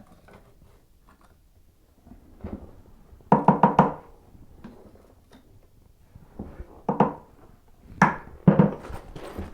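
A quick run of sharp knocks with a slight ring about three seconds in, then a few single knocks near the end.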